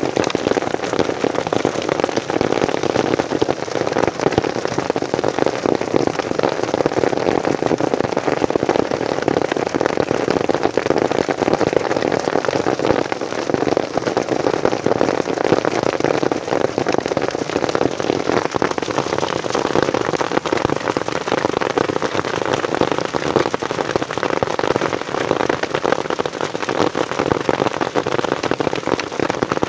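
Rain and hail falling on an open umbrella overhead: a dense, steady rattle of small hits that does not let up.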